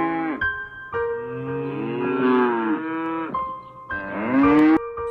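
Cow mooing: a long drawn-out moo that rises and falls in pitch, between the tail of one call at the start and a shorter moo near the end. Background music with steady held notes plays under it.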